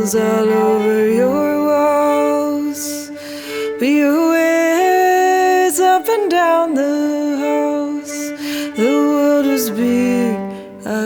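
Slow, gentle song played on cello, violin and bass, with long sustained notes that slide into pitch and a few soft percussion strokes.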